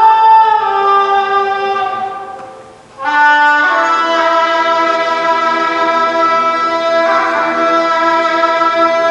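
Tenor suona playing a slow melody with a Chinese traditional orchestra of bowed and plucked strings. A phrase fades away about two seconds in, and about three seconds in the ensemble comes back in loudly with long held notes.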